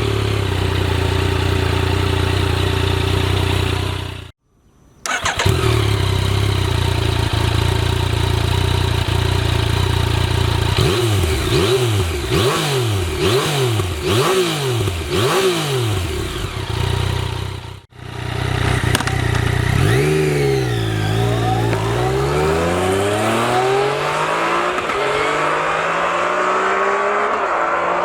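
Yamaha MT-09 three-cylinder engine idling, then revved in about five quick blips that rise and fall. After that it idles again, then the revs climb in a long rising pull.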